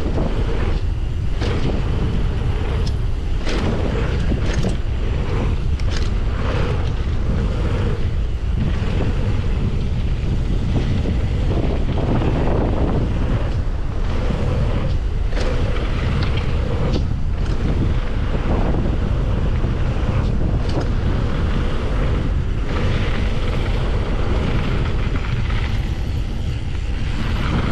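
Wind buffeting the microphone of a mountain bike descending a loose gravel trail at speed, over a steady rumble of tyres on the dirt. Frequent short knocks and rattles come from the bike over bumps.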